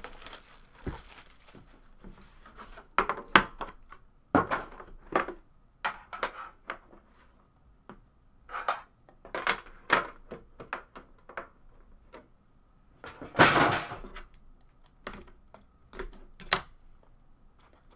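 Hands handling a trading-card box and its packaging: irregular clicks, taps and short rustles of cardboard and plastic wrap as the box is unwrapped and opened. One longer rasping rustle comes about two-thirds of the way through.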